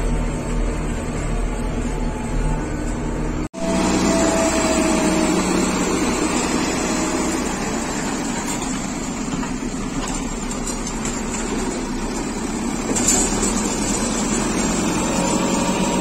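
JCB backhoe loader's diesel engine running steadily while the front loader bucket works a load of scrap steel wire. Before that, a steady hum breaks off sharply about three and a half seconds in.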